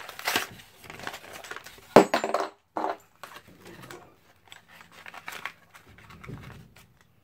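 Hands handling Beyblade packaging and its hard plastic parts: crinkling and rustling with a run of sharp clicks and clacks, the loudest about two seconds in.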